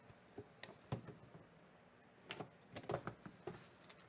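Small cardboard trading-card box being handled and turned over by hand: a scatter of faint taps, knocks and rubs, a few single ones in the first second and a busier cluster in the second half.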